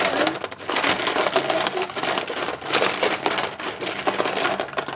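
Plastic Crayola markers clattering and rattling against each other in a clear plastic tub as hands rummage through them, a dense stream of small clicks.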